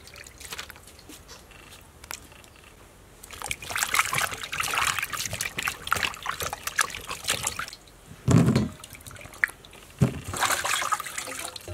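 Water splashing and sloshing as hands wash limes and red chili peppers in a bowl of water, in two bouts, with a single dull thump between them.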